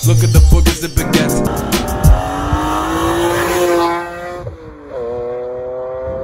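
Hip-hop music with a heavy bass beat for about two seconds, then a car's engine revving as the car accelerates away. Its pitch rises steadily, drops once about four and a half seconds in, then climbs slowly again.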